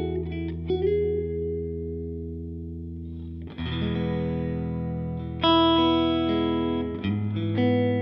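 Electric guitar played through a Line 6 Helix modeller on a Matchless CH1 amp model into a Greenback cab model miked with Royer 121 and EV 408 mic models: big open-string chord voicings in E major, each struck and left to ring out, with new chords coming in about three and a half, five and a half and seven seconds in.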